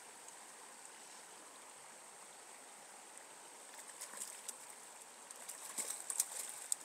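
Steady rush of a trout stream. In the last few seconds come irregular clicks and knocks close to the microphone while a hooked brown trout is being landed.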